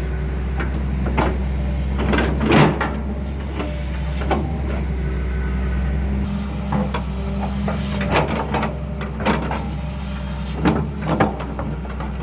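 Excavator engine running steadily, with repeated clunks and knocks from the machine at work. The loudest knocks come about two and a half seconds in and again in a cluster in the second half.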